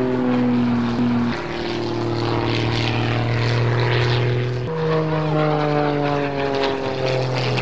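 Zivko Edge 540 aerobatic plane's six-cylinder Lycoming engine and propeller droning overhead. The note slides slowly downward and changes pitch abruptly a few times: about a second in, near the middle, and near the end, as the plane manoeuvres.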